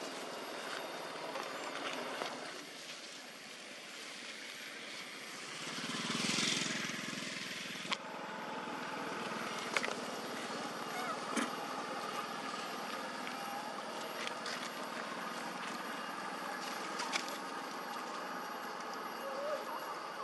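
Outdoor ambience: a steady background hiss, with a louder swell about six seconds in and a few sharp clicks scattered through.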